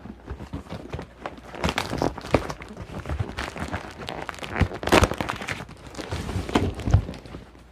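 Cardboard box and its packing being handled and opened by hand: irregular rustling and crinkling with light knocks and scrapes, the sharpest knock about five seconds in.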